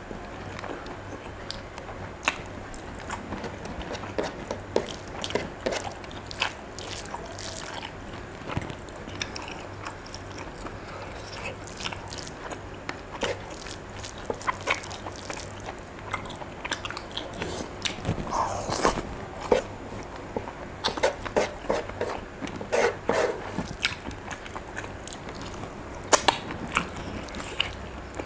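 A person chewing mouthfuls of rice with sambal and rendang close to the microphone: wet smacking and clicking mouth sounds, with louder smacks clustering in the second half.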